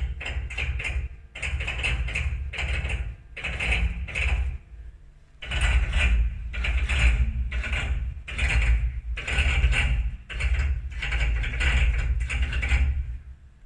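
Haas CNC machine's Z axis making an abnormal mechanical noise in repeated bursts as it moves: short, quick bursts at first, then longer ones, stopping about thirteen seconds in. The noise is the sign of a Z-axis fault.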